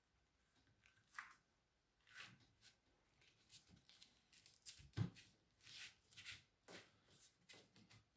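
Faint, scattered rustles and light taps of hand work with laminating materials, with a dull knock about five seconds in as the loudest sound.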